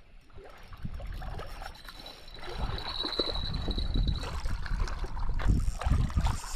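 Water gurgling and sloshing, under an uneven low rumble of wind and handling on the microphone that grows louder after about two seconds.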